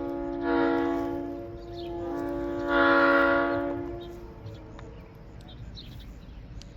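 Leslie RS-3L three-chime locomotive air horn blown twice on compressed air, a sustained chord of steady tones each time, the second blast longer and louder.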